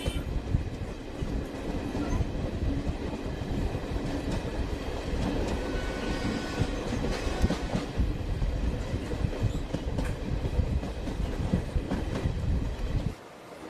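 Passenger train running on the rails, its wheels clattering over the track in a dense, continuous rumble. The sound cuts off abruptly near the end.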